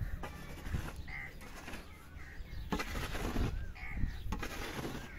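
A wooden stick beating a heap of dry clay lumps to crush them into soil, giving a series of irregular dull thuds. Birds call briefly now and then in the background.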